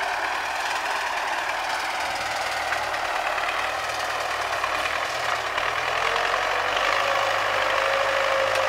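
MTZ-80 tractor's four-cylinder diesel running under load while pulling a mounted plow through the soil, a steady diesel clatter that grows louder about six seconds in as the tractor comes closer.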